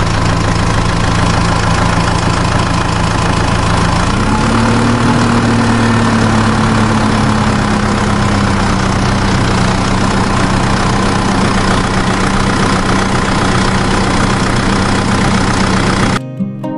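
Tractor engine running steadily, its pitch rising slightly about four seconds in; it cuts off abruptly shortly before the end.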